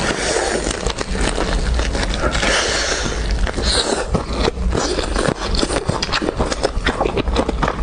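Close-miked eating: a person biting, chewing and crunching food, with a dense run of irregular crackles and clicks.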